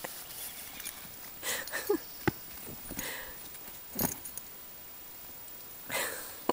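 Goats moving about on straw-covered ground: scattered soft rustles and light knocks, loudest about four seconds in.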